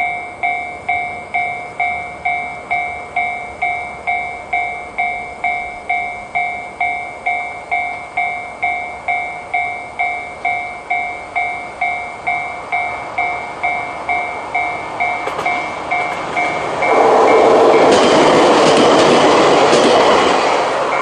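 Japanese railway level-crossing alarm sounding the JR standard electronic bell tone, an even two-tone ding about twice a second, warning that a train is coming. About 17 seconds in a train passes over the crossing, its noise covering the bell for a few seconds before the ding comes through again at the end.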